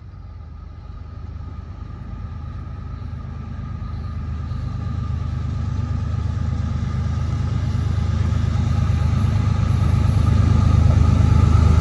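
CSX freight train's diesel locomotives approaching on the main track, their engine rumble growing steadily louder.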